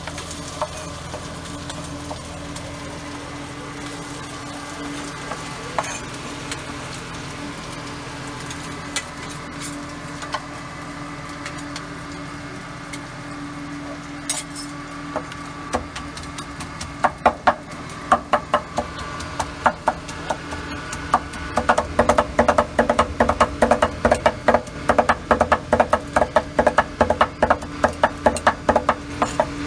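Food-preparation sounds: a steady low hum with scattered clinks of utensils, then, a little past halfway, a fast run of sharp knocks like a knife chopping on a wooden board, growing denser and louder toward the end.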